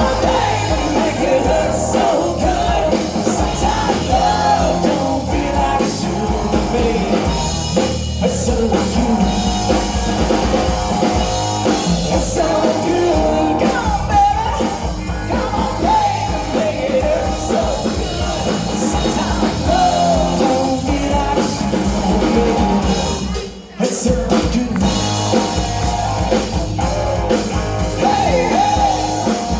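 Rock band playing a song with a lead singer: voice over guitars and drums. The music briefly drops out for a split second about four-fifths of the way through.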